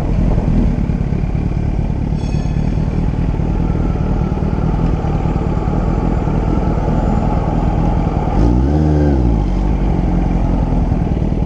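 Motorcycle engine running steadily while being ridden. About eight seconds in, the revs rise and fall once in a quick blip.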